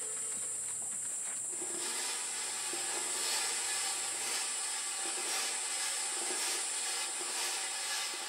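Night-time insect chorus: a steady high-pitched chirring over a faint hiss.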